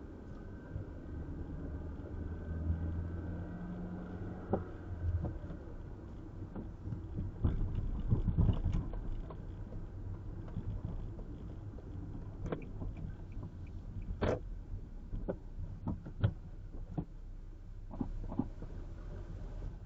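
Car driving, heard from inside the cabin: a steady low rumble of road and engine noise, with several sharp knocks or rattles in the second half.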